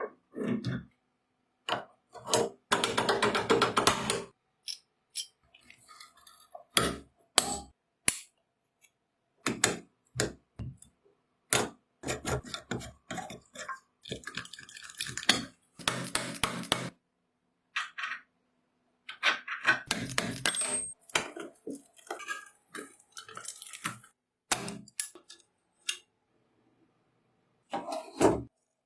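Small metal parts clinking and knocking as they are handled and set down, in irregular bursts with short silent gaps between them.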